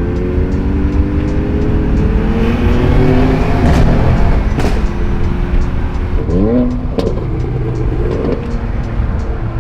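Car engine pulling under acceleration, its pitch climbing slowly, with a quick sharp rev rising and dropping about six and a half seconds in, over steady road noise.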